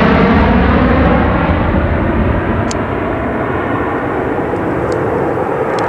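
DC-10 air tanker's three jet engines at takeoff power, a loud, steady roar that slowly grows duller and a little quieter as the aircraft departs.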